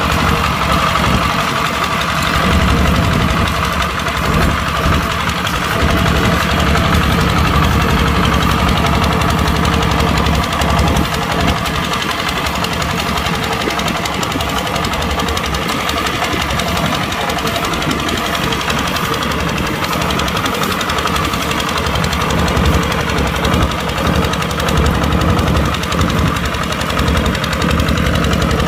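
Kubota tractor's diesel engine running steadily while pulling a plow, with small swells in loudness.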